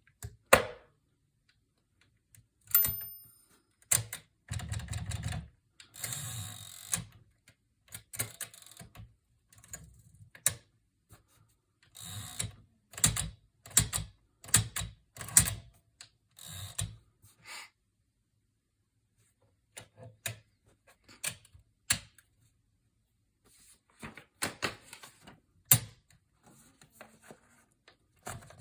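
1954 Smith-Corona Super manual typewriter being typed on: irregular bursts of sharp key and typebar strikes with short pauses. About three seconds in there is a short bell-like ring, followed by a longer stretch of mechanical sound.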